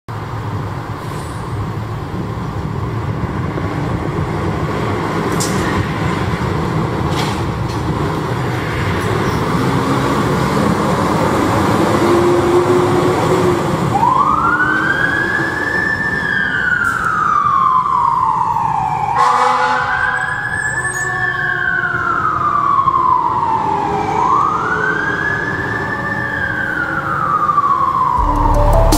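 Fire engine on an emergency response: the truck's diesel engine and road noise grow louder over the first dozen seconds. From about halfway its siren wails in three slow cycles, each rising quickly and falling away.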